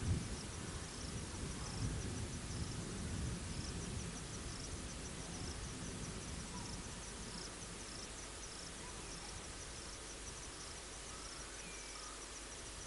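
Insects chirping in the bush: a high, evenly repeated chirp that keeps going steadily, over a low rumble that fades away over the first few seconds.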